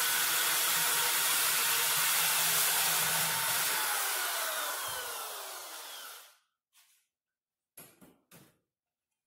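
Corded electric drill running at speed while drilling the steel door skin, then winding down with a falling whine and stopping about six seconds in. A few light knocks follow near the end.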